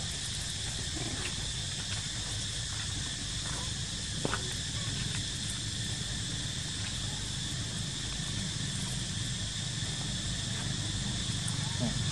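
Steady high-pitched drone of an insect chorus, with a low rumble beneath it and a single brief click about four seconds in.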